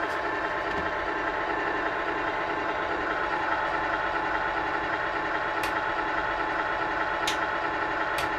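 A GT Power Light and Sound Kit Pro in an RC semi truck playing a simulated big-truck engine idle through its small speaker, steady and even. Three short sharp clicks come in the second half.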